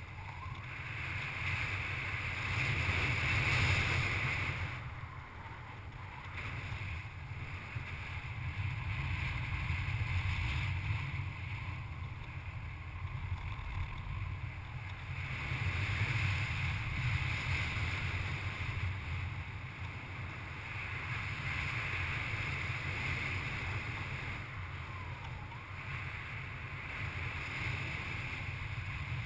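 Airflow rushing over a paraglider pilot's harness-mounted camera in flight: a steady low rumble of wind on the microphone with a hiss on top, swelling and easing every few seconds.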